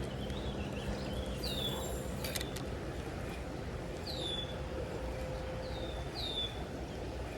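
Creek water running steadily, while a songbird repeats a short, high, downward-sweeping call about five times. A couple of sharp clicks come about two seconds in.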